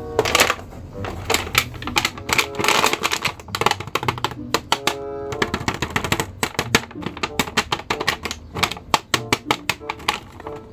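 Clear plastic blister packaging of a carded action figure crackling and crinkling as it is handled, in a rapid, irregular run of sharp clicks.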